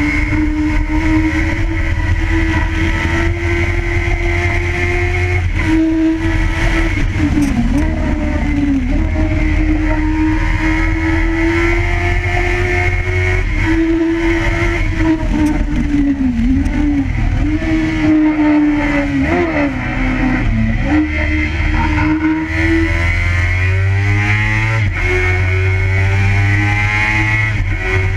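Kawasaki ZX6R inline-four engine running hard at high revs on the move. Its pitch dips and recovers several times, then climbs steadily near the end, over heavy wind rumble on the microphone.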